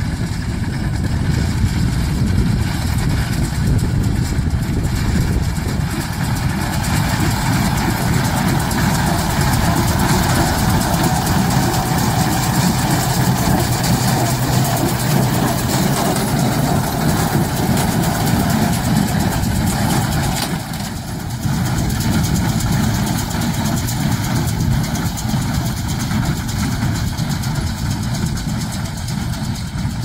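Tractor engine running steadily, with a brief dip in level about twenty seconds in.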